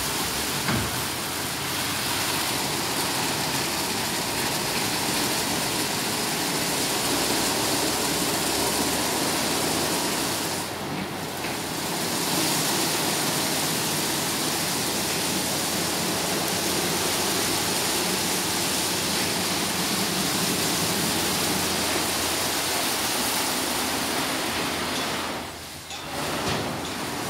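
Automatic rollover car wash running: spinning cloth brushes scrubbing a car under water spray, with drive motors, making a steady rushing noise. The noise dips briefly about eleven seconds in and again near the end.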